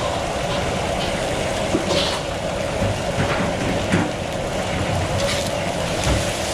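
Oyster omelettes frying on a gas-fired flat iron griddle: a steady rumble and hiss with a few light clicks. Near the end a wide metal spatula is worked under one omelette to turn it.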